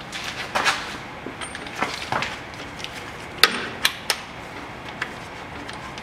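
A ratchet and socket loosening the drain plug on the shared manual gearbox and transfer case sump: a few sharp metallic clicks and clanks, the loudest about three and a half seconds in.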